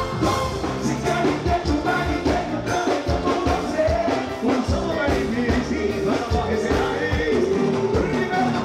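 Live band music with a singer over a steady beat.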